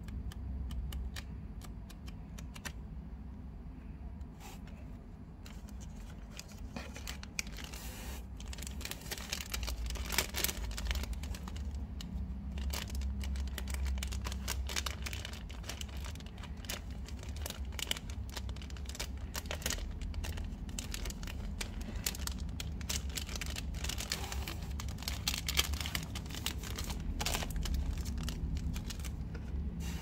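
Hands handling plastic-shrink-wrapped books and paper pages: crinkling, crackling plastic wrap and rustling paper, sparse at first and dense after a few seconds, over a steady low hum.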